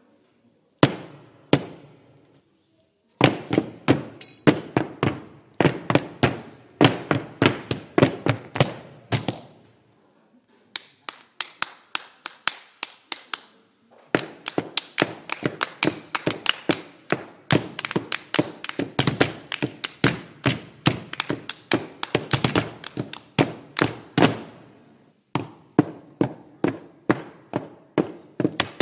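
Rhythmic hand percussion: several people slapping and tapping their palms on hardback atlases on a table, several strikes a second, in phrases with short breaks between them.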